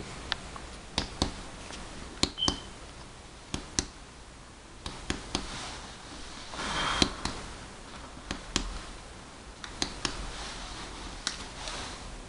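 Fingers percussing the back of a person's chest: short, sharp taps, often in quick pairs, every second or so. This is chest percussion during a held deep breath, feeling for the level of the diaphragm where resonance gives way to dullness.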